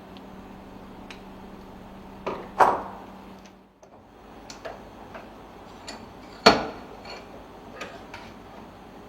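Scattered metallic clicks and knocks of fittings being handled and fitted together while a pressure setting tool for charging a lubricator accumulator is assembled, the two loudest knocks about two and a half and six and a half seconds in. A low steady hum in the background stops a few seconds in.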